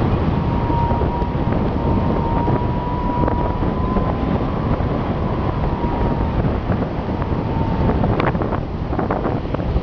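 Wind buffeting the microphone of a camera carried aloft by a kite, with a thin, steady, slightly wavering tone underneath. The tone stops about eight seconds in, and a few sharp clicks follow.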